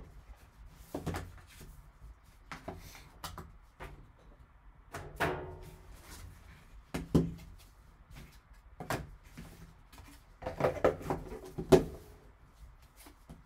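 Wooden Hit Parade card box being handled by gloved hands: the lid lifted off and set back, a card taken from the foam insert, giving scattered knocks, taps and scrapes of wood. The loudest cluster of knocks comes near the end.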